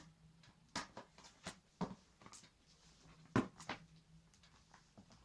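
Clicks and light knocks from an e-reader being pressed and fitted into a PU leather cover case, about seven in all, the loudest about three and a half seconds in.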